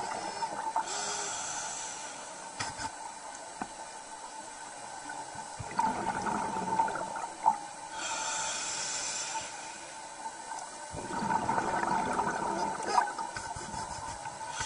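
Scuba diver breathing underwater through a regulator: a hiss on each inhale alternating with a gurgling rush of exhaled bubbles, about every six to seven seconds.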